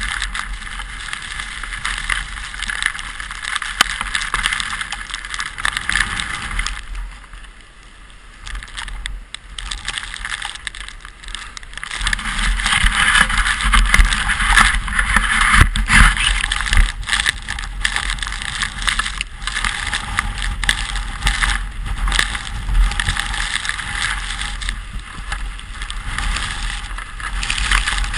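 Steady scraping hiss of a sled sliding over snow, with a low rumble underneath. It eases off for a few seconds, then grows louder and rougher with small knocks before settling back.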